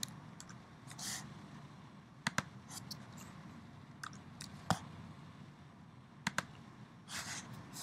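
Faint, scattered clicks of a computer mouse and keyboard keys, a few sharp ones spaced a second or two apart, the sharpest about halfway through, over a low steady hum.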